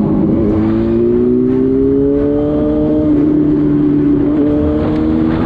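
Motorcycle engine running under load, its pitch rising steadily for about three seconds and then holding, over constant wind and road rush.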